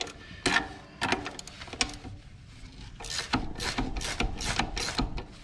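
Steel wrench clinking and clicking against a nut and stud on an Allis-Chalmers HD6 steering clutch hub as the nut is turned: a run of short metallic clicks and knocks, a few at first, then coming closer together over the last couple of seconds.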